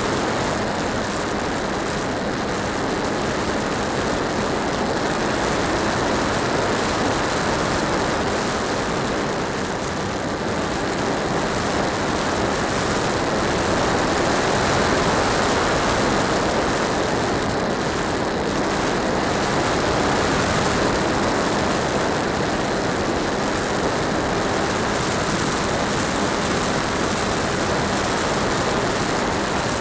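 Electric motor and propeller of an HK Skipper RC waterplane in flight, heard from a camera riding on the airframe: a steady whirring rush mixed with wind noise, easing briefly about ten seconds in.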